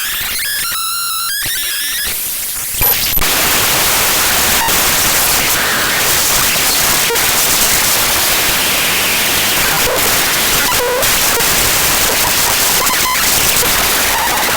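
The bytes of an ffmpeg.exe program file played back as raw audio: a brief stretch of buzzing tones, then from about three seconds in a loud, dense static hiss.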